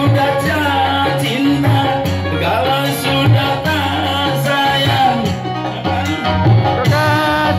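Live amplified music: a singer with a microphone, accompanied by an electronic keyboard. A wavering sung melody runs over a steady, repeating bass line.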